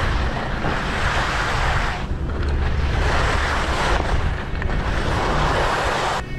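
Skis scraping across hard-packed snow through a series of turns, swelling and easing about every two seconds, with wind rumbling on the microphone.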